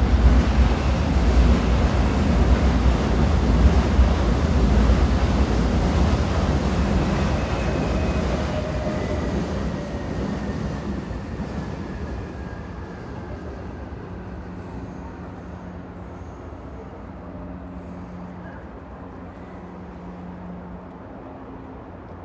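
Train rumbling along the rails, loud at first and fading steadily away, with a faint falling squeal partway through. A low steady hum is left in the second half.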